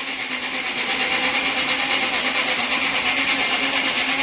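Motor-driven power hacksaw on a multi-purpose machine, its blade cutting steadily with a fast, even rasping rhythm over the steady hum of the electric motor.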